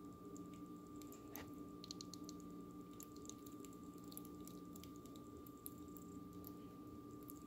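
Faint, scattered soft clicks and wet ticks of cooked potato pasta clumps being moved about in a colander, thickest a couple of seconds in, over a steady background hum.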